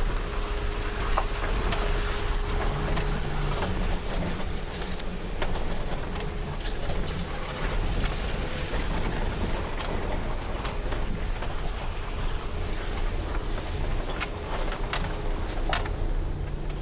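Car cabin noise on a rough dirt road: a steady engine and tyre rumble, with scattered knocks and rattles as the car goes over the broken surface.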